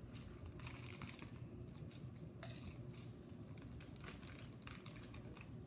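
Plastic bag crinkling in short, irregular rustles as it is handled and opened.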